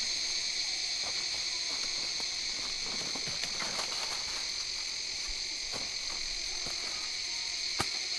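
Steady high-pitched chorus of forest insects, with light crackling of footsteps through dry leaf litter around the middle and one sharp click near the end.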